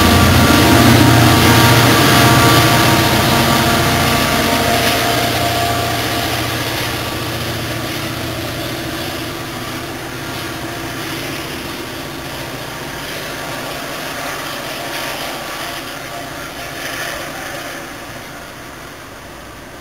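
NJ Transit GP40PH-2B diesel locomotive and its train moving away: the engine's steady drone and the rumble of the train fade gradually as it recedes into the distance.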